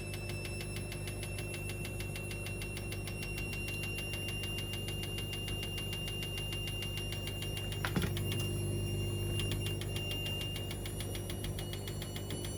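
Washing machine running: a steady motor hum with a thin high whine, and a single click about eight seconds in.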